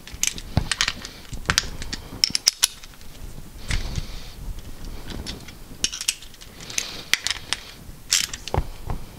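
Irregular clicks and metallic clinks of an aluminium engine part being handled and fitted by hand.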